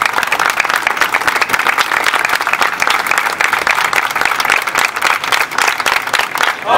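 A crowd applauding: many hands clapping steadily together.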